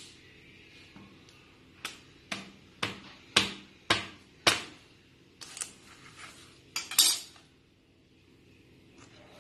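Kitchen knife chopping through cassava root onto a wooden cutting board: a run of sharp knocks, about two a second, starting about two seconds in, then a few more, less regular, before they stop about seven seconds in.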